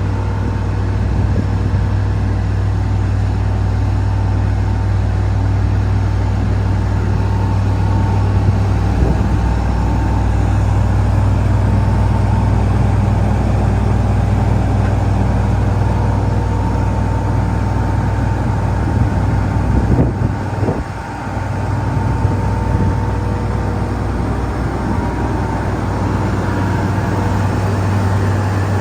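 Diesel engine of a Wirtgen W100F asphalt milling machine running steadily, a low drone with a steady whine above it. About twenty seconds in the low drone drops away briefly, then returns.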